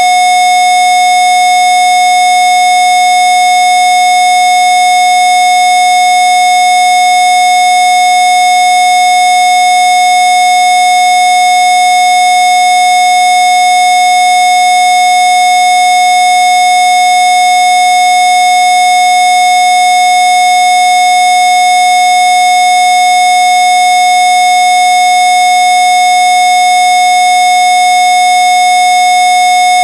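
A single electronically generated pure tone, one of the Rife frequencies a little under 800 Hz, held perfectly steady and loud without a break.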